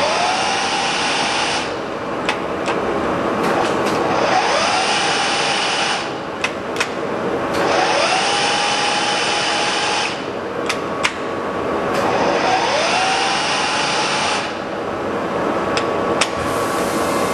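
TOS SM50C lathe's rapid traverse being run in repeated strokes. Each time it engages, a whine rises in pitch and then holds steady while the carriage moves at speed. Sharp clicks and a brief drop in level mark each stop and re-engagement, about four cycles in all.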